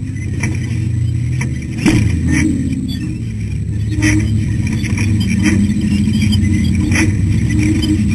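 Ultra4 rock-racing car's engine running under load as the car drives over desert rock, heard from inside the car, with sharp knocks and rattles from the chassis and suspension. The loudest knock comes about two seconds in, with others about four and seven seconds in.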